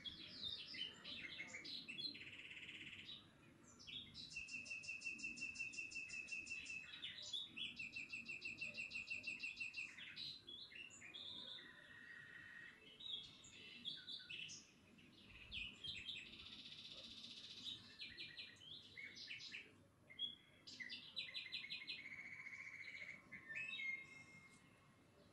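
A small songbird singing continuously: fast trills, chirps and held whistled notes, one phrase after another with only brief pauses.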